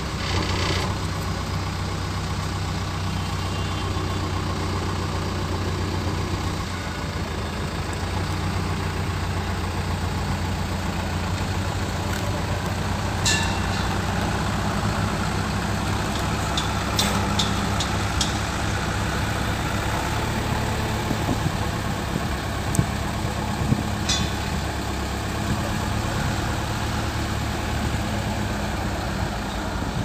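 JCB backhoe loader's diesel engine running steadily as it works the backhoe arm, with a few brief sharp clicks about halfway through.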